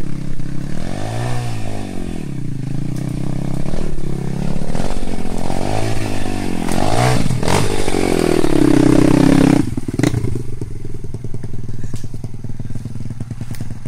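Off-road motorcycle engine revved up and down over and over, working hard along the trail; the longest, highest rev comes about two-thirds of the way in, then it drops sharply to a lower, steady run.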